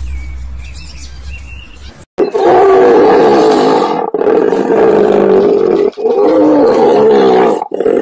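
Hippopotamus calling: a loud, rough call with wavering pitch starting about two seconds in, in three bouts with brief breaks between them. Before it comes a faint low hum.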